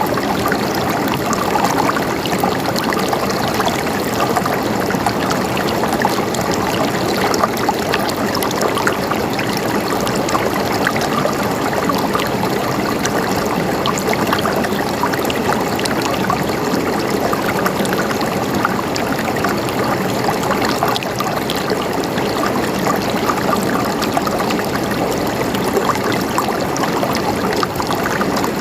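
Water running and gurgling steadily over rocks in a stream, with a dense, even splashing.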